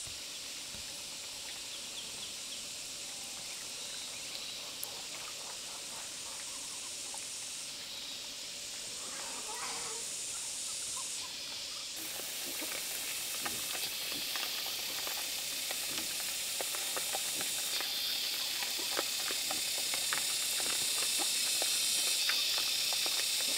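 A steady high hiss throughout. About halfway through, pigs start crunching dried corn kernels, a dense run of short sharp crunches.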